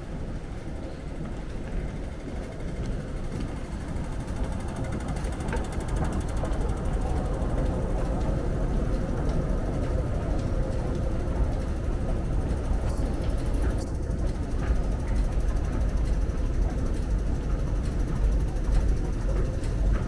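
Underground metro station ambience: a steady low rumble of escalator machinery and station noise that grows gradually louder toward the end, with a few faint clicks.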